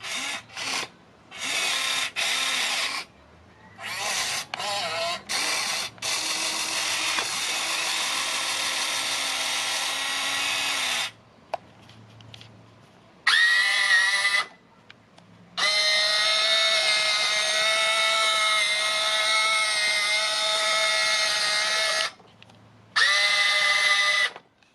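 Electric gear motors of an all-metal Top Race TR211M RC excavator whining in stop-start bursts as its functions are worked: several short bursts early on, then longer runs of several seconds each, cutting in and out abruptly.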